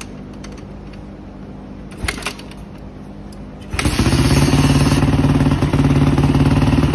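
2006 Yamaha YZ450F four-stroke single-cylinder dirt bike engine being kick-started. It catches about four seconds in and then runs loudly and steadily.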